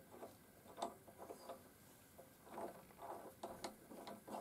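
Faint, scattered metallic clicks and light rubbing as the locking handle is screwed into a quick-change tool post. The clicks come more thickly in the second half.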